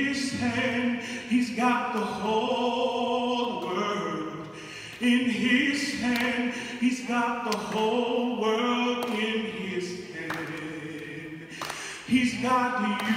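A solo singer singing slow, drawn-out phrases, with a choir and orchestra accompanying in the background.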